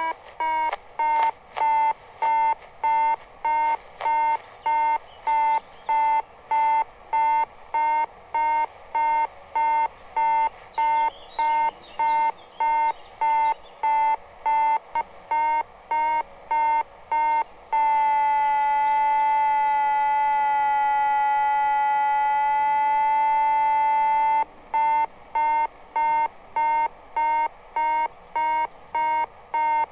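Electronic altimeter telemetry beeping: a pitched beep about twice a second, changing past the middle to one held tone for about six seconds, then beeping again.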